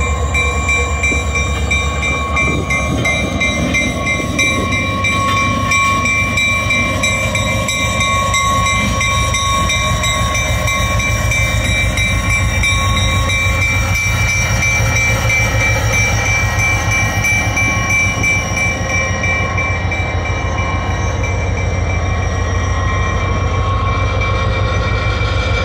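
EMD SD40 diesel-electric locomotive running as it moves past close by: a steady, loud low engine rumble with a steady high whine over it.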